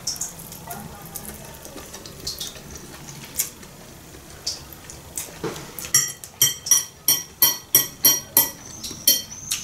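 Metal fork clinking and scraping against a ceramic bowl of glass noodles. A few scattered clicks come first, then about halfway through a quick run of about a dozen ringing clinks, roughly four a second.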